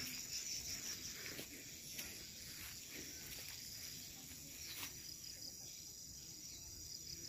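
Faint insects chirping, a thin high repeated chirr, over quiet outdoor ambience, with one faint click about five seconds in.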